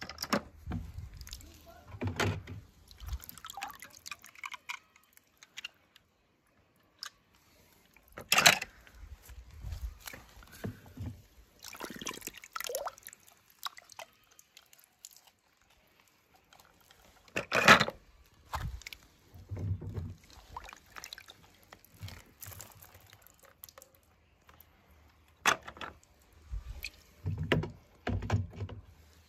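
Water splashing and dripping as small toy cars are moved about in water, with scattered knocks. Two sharp clicks, about 8 and 18 seconds in, are the loudest.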